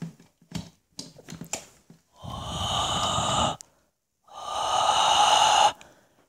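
Heavy breathing close to the microphone: two long, loud exhales of about a second and a half each, after a few faint clicks and taps.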